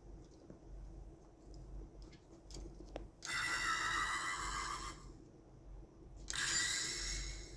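Electronic sound effect from a Daitetsujin 17 die-cast toy robot's built-in speaker, played twice, each time for about a second and a half, after a few small clicks.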